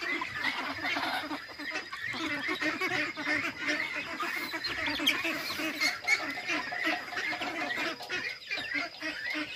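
A large flock of young domestic ducks, about 45 days old, quacking and chattering without pause, with many calls overlapping.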